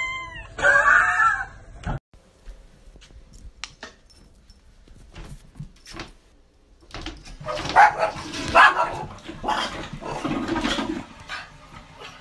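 A cat meows in the first second and a half. Then a small long-haired dog barks and yips several times in the second half, with faint clicks before that.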